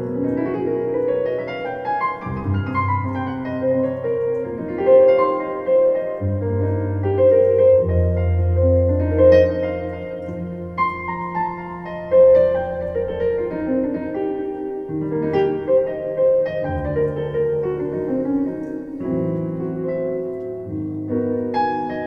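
Solo piano played on a digital stage piano: a moving melody and chords over long, held low bass notes.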